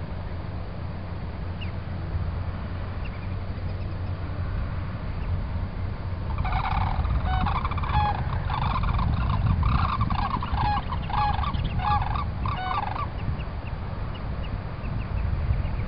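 Sandhill cranes calling: a series of loud, repeated bugling calls that starts about six seconds in and lasts about six seconds. A low rumble, likely wind on the microphone, runs underneath.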